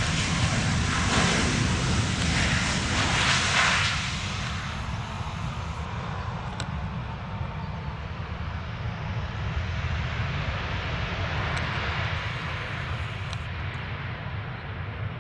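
Jet engines of a Southwest Boeing 737 on its landing roll, loud for the first four seconds, then settling to a steadier, lower noise that slowly fades.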